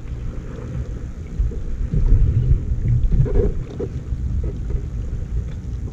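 Wind buffeting the microphone: a loud, irregular low rumble that rises and falls, with no steady motor tone.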